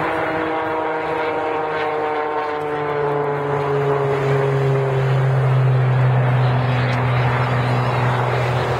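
Oracle Challenger aerobatic biplane's piston engine and propeller droning overhead, the pitch sliding slowly down over the first few seconds, then a steady low drone that swells slightly.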